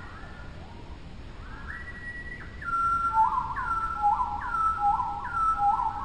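A shallow river runs over stones, with a bird's clear whistled calls coming in over it. The calls begin about a second and a half in, then repeat a little more than once a second, louder, through the second half.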